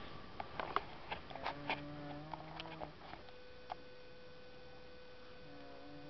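A man snoring: one drawn-out snore about a second and a half in and another starting near the end. Handling rustle and clicks in the first half, and a steady hum after.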